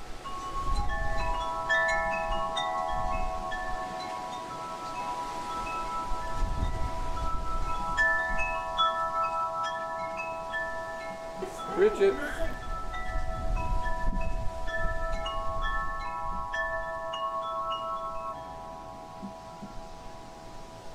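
Wind chimes ringing, struck again and again so that several notes overlap and each rings on for seconds as it dies away. A low rumble comes and goes underneath.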